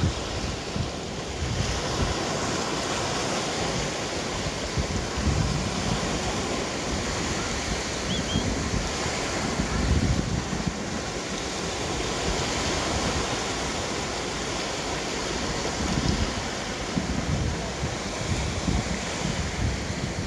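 Waves breaking on a beach, a steady wash of surf, with wind buffeting the microphone now and then.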